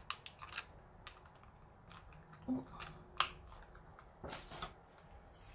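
Paper and small craft tools being handled on a cutting mat: scattered light clicks and taps, with a short rustle of cardstock near the end.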